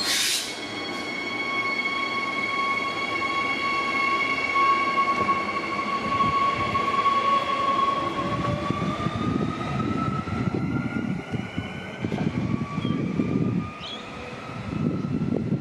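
Queensland Rail electric multiple-unit train with a steady electrical whine of several tones. About 8 s in, the whine begins to rise in pitch as the train gets moving, and a low rumble of wheels on rail joins it. A brief sharp high sound comes at the very start.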